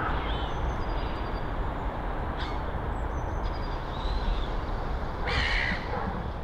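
Birds calling over a steady low rumble: short, thin high chirps in the first few seconds, then one harsh, louder call about five seconds in.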